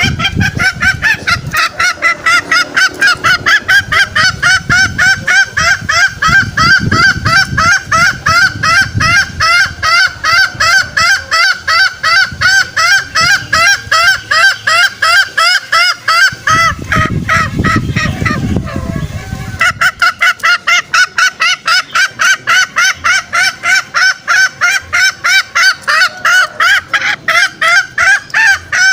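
Green junglefowl lure calls: a fast, unbroken run of short calls, about three a second, that breaks off briefly about two-thirds of the way through and then resumes. A low rumble lies under the calls until the break.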